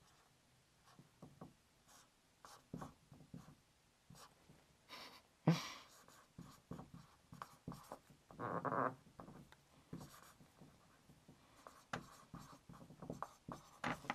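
Marker drawing and writing on a whiteboard: faint, irregular short strokes and squeaks, with a sharper tap about five and a half seconds in and a longer stroke a few seconds later.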